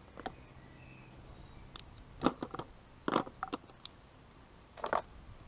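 A few short clicks and rustles from handling a plastic spool of stiff chod filament, with the sharpest click about two seconds in.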